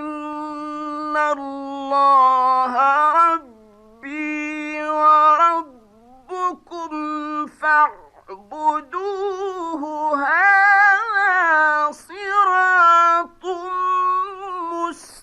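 A man reciting the Quran in the melodic mujawwad style: long, ornamented held notes with a wavering pitch, broken by short pauses for breath.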